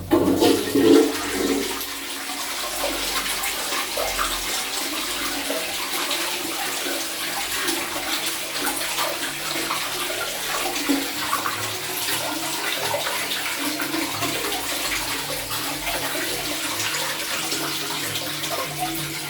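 Low-level Shires Denbigh toilet flushing: a loud rush of water starting suddenly, easing after about two seconds into steady running water.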